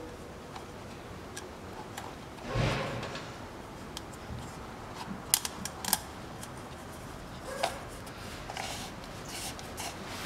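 Handling noise of small parts and tools at a car's oil-filter housing: a brief scrape about two and a half seconds in, then a quick run of sharp light clicks around the middle, and a few soft taps.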